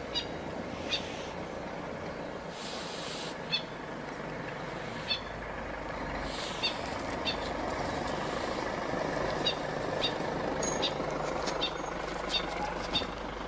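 Steady rumble and hiss of a vehicle's engine running at idle, with short, sharp, high ticks at irregular intervals.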